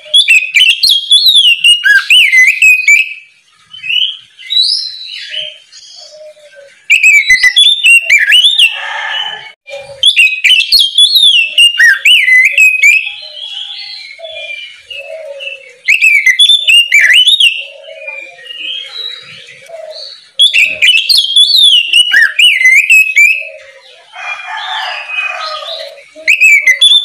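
Oriental magpie-robin (kacer) singing in full, open song: loud bursts of rich, quickly sweeping whistled notes, each two to three seconds long, coming about every four to five seconds, with softer twittering notes between the bursts.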